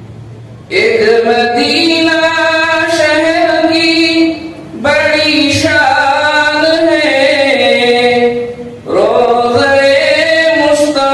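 A voice chanting in long, drawn-out melodic phrases, each held for several seconds. It comes in about 0.7 s in and pauses briefly for breath about four and a half and eight and a half seconds in.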